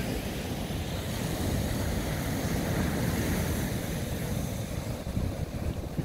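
Large ocean waves breaking and washing up the beach: a steady rushing surf that swells a little in the middle, with wind rumbling on the microphone.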